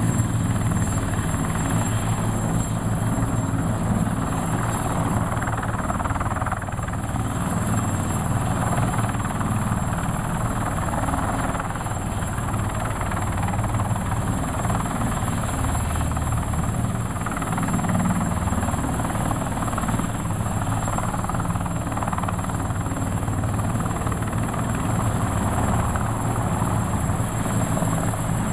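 Bundeswehr CH-53 heavy-lift helicopter hovering low under load, its large twin-turbine rotor making a steady, loud thudding chop, with a sling load of sandbags hanging beneath it.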